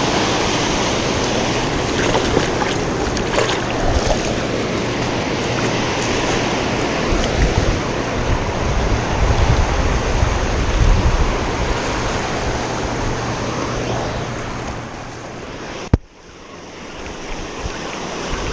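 Ocean surf washing up the beach with wind buffeting the microphone. About sixteen seconds in, a single sharp click is heard, and the sound drops away briefly before the surf builds back.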